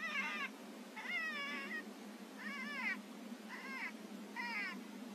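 Five short, high-pitched, mewing animal-like calls about a second apart, each rising and then falling in pitch.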